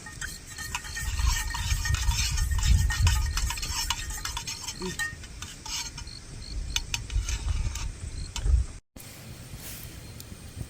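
Wood fire crackling and popping, burning sappy pine fatwood, over a low rumble; it cuts off abruptly about nine seconds in.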